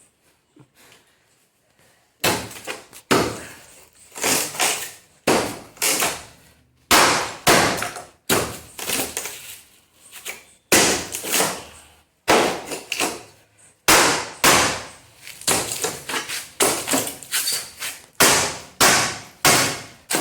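Hammer blows on masonry, a steady run of sharp strikes about one to two a second, starting about two seconds in.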